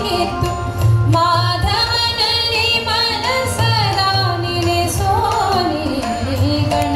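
A woman singing an Indian classical-style song, her voice sliding and ornamenting between notes, over a steady instrumental accompaniment.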